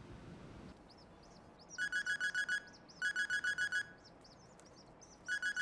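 Telephone ringing with an electronic trill: three short bursts of rapid beeps, the first two close together and the third after a longer pause near the end.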